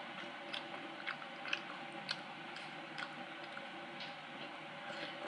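Person chewing a bite of chocolate chip cookie dipped in milk, with scattered soft clicks over a steady low hum.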